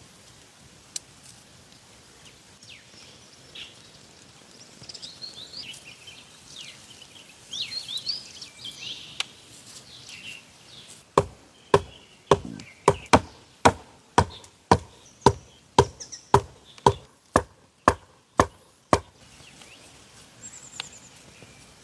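A run of about sixteen sharp, hollow knocks on green bamboo, roughly two a second, after several seconds of faint high chirping.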